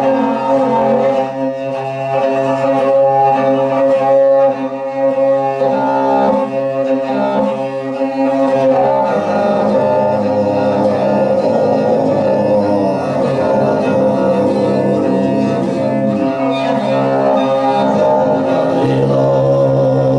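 Tuvan throat singing over a bowed Tuvan fiddle: a low, steady sung drone with a line of ringing high overtones above it, and the bowed strings sounding along with it. The texture grows denser about halfway through.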